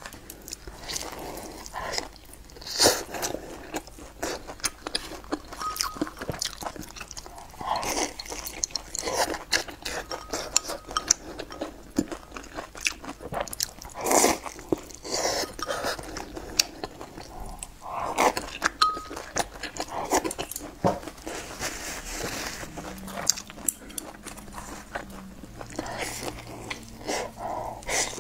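Close-miked eating: a person biting into and chewing soft pancakes filled with greens and egg, with irregular small crunches and mouth sounds.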